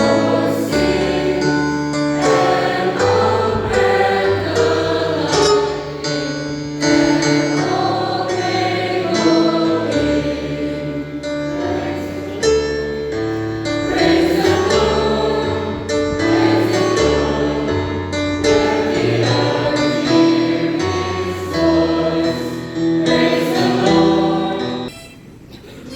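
A school anthem sung in chorus by a group of voices over sustained instrumental accompaniment. It comes to a close about a second before the end.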